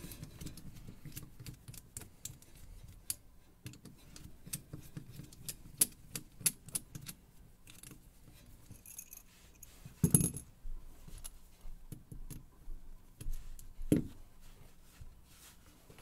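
Small metallic clicks and scrapes of a precision screwdriver backing the screws out of a Robur safe deposit box lock, with the lock's metal parts clinking as they are handled. Two duller knocks, one about ten seconds in and another near the end.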